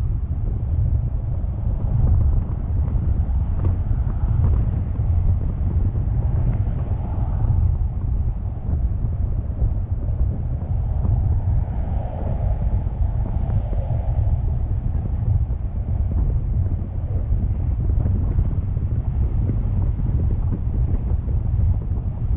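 Wind buffeting the microphone of a camera on a moving car: a steady low rumble mixed with road noise.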